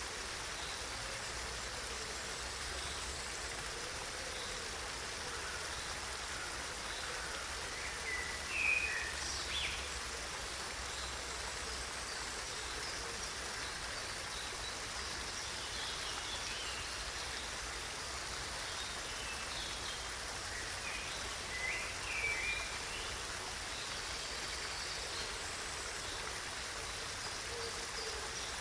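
Flowing stream water running steadily. Birds chirp briefly twice, about eight seconds in and again past twenty seconds.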